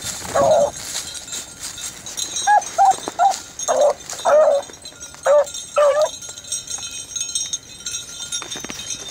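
Rabbit hounds baying in a string of short, yelping calls as they work a rabbit's scent through brush. The calls come in quick succession over the first six seconds, then fall off.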